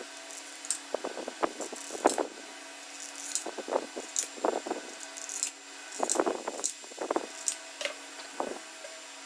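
Irregular clicks, rattles and scrapes of small hard parts and tools being handled and fitted, over a steady low hum.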